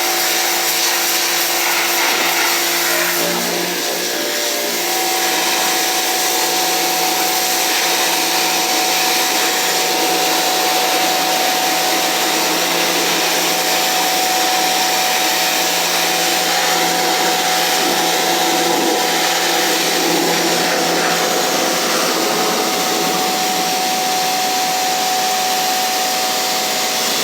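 Pressure washer running steadily, a motor hum under the hiss of the water jet spraying.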